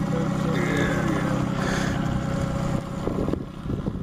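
Boat motor running with a steady low hum while a fish is played on rod and reel. The hum stops about three seconds in.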